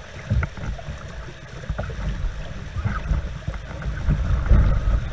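Water rushing past a canoe in shallow rapids, with wind buffeting the microphone and a few dull knocks, about half a second, two seconds and four and a half seconds in.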